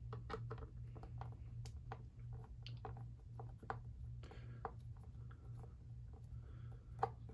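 Faint, irregular small clicks and taps of hand-handling small screws and a screwdriver while fastening a laptop hard drive in place, over a steady low electrical hum.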